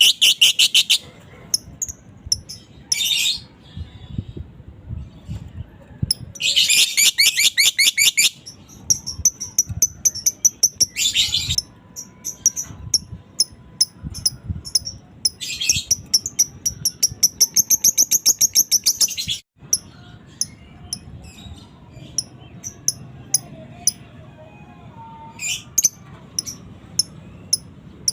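Fighter lovebird ngekek: several long runs of rapid, high-pitched chattering chirps, with single sharp chirps scattered between them.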